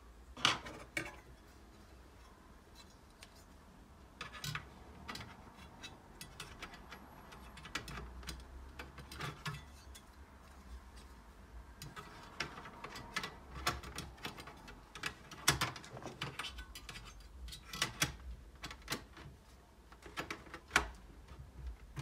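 Irregular small clicks, taps and light metallic knocks from hands fitting the sheet-metal cover plate back over the RAM slots of an opened Dell OptiPlex 3011 all-in-one PC.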